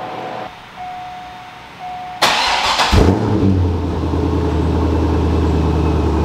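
2002 Corvette Z06's LS6 V8 starting: two short beeps, then the starter cranks briefly about two seconds in, and the engine catches a moment later and settles into a steady idle.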